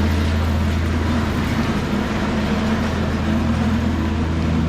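Petrol plate compactor (a 'whacker') running steadily while levelling paving stones, a constant low hum with no breaks.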